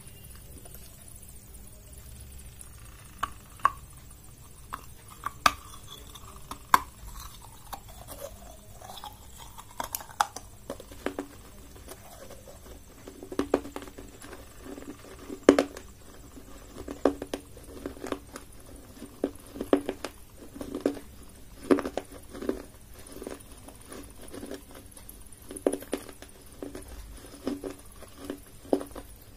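Fingertips and nails tapping on small unglazed clay diyas (earthen lamp bowls): a few scattered light clicks at first, then from about a third of the way in a quicker, steady run of knocks, each with a brief low ring from the clay.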